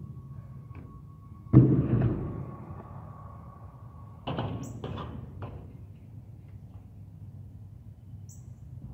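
Skatepark ramp riding: a loud hard slam of a landing about one and a half seconds in, with a rolling rumble after it, then a second impact around four seconds in followed by a few lighter clacks.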